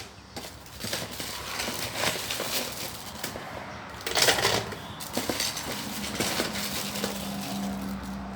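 Ice cubes clinking and clattering into a blender jar: a run of irregular knocks, with a louder cluster about four seconds in.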